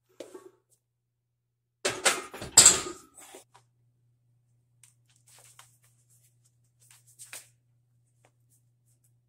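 A loaded axle barbell clanking down into the steel rack's hooks about two seconds in, the metal and plates rattling for about a second. After it, a faint low steady hum with a few small scuffs and breaths as a concrete atlas stone is lifted to the shoulder.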